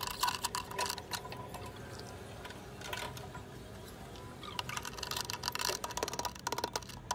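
Wrench tightening the lock nut on a top-loading washing machine's drum hub over the gearbox shaft: scattered metal clicks, then a fast run of clicks over the last couple of seconds.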